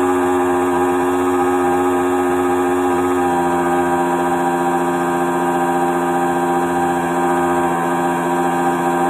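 RC model fishing boat's motor running at steady speed, heard up close from on board as a constant whine that holds its pitch.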